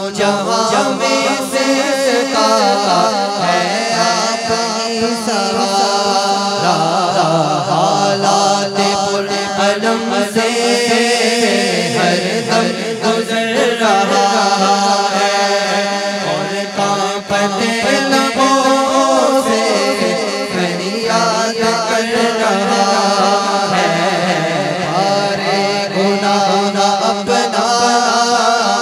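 Male voices chanting an Urdu naat without instruments, amplified through handheld microphones: one voice carries a wavering, ornamented melody over a steady held low note.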